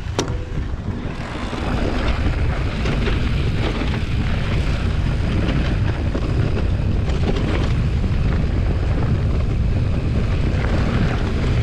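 Wind buffeting the microphone together with knobby mountain-bike tyres rumbling over a loose dirt and gravel road on a descent. The noise builds over the first couple of seconds as speed picks up, then holds steady.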